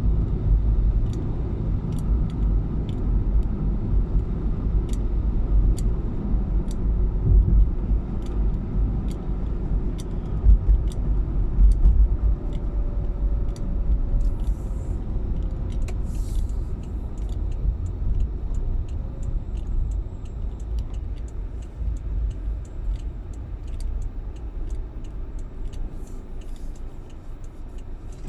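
Car driving along: a steady low engine and road rumble with scattered light clicks, easing off near the end.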